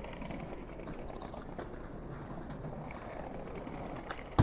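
Skateboard wheels rolling over pavement with a steady rumbling hiss, then a sharp clack of the board at the very end.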